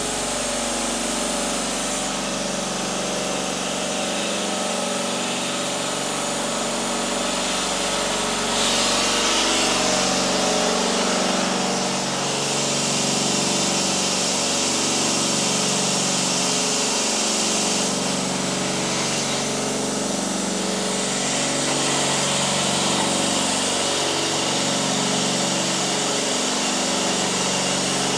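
Air compressor running steadily, with a wavering motor hum and a high hiss of air that grows louder for stretches and eases again.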